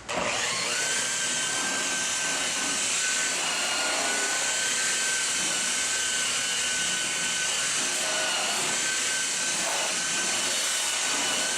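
Electric power tool's motor switching on and running steadily with a high, even whine and a rushing hiss.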